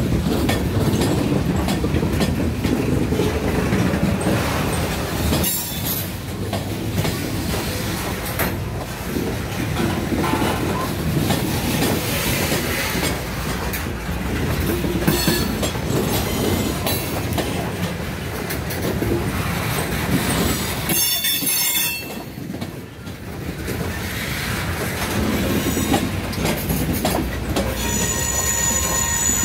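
Freight train's hopper and tank cars rolling past, wheels running steadily on the rails. Short high-pitched wheel squeals come a few times, the strongest about two-thirds of the way through, and a ringing squeal near the end.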